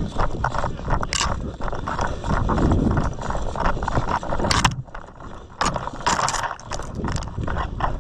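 Footsteps of a player on the move, with gear rattling and irregular knocks and scuffs, over low rumble from handling of the body-worn camera.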